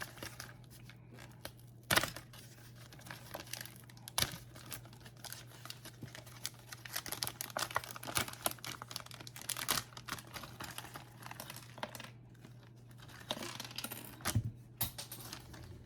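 Plastic wrapping crinkling and rustling with irregular small clicks and knocks, typical of handling model-kit parts and their packaging, over a low steady hum.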